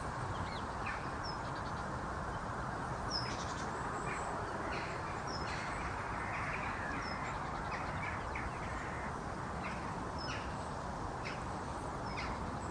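Outdoor field ambience: a steady background hiss with short, high bird chirps recurring every second or two.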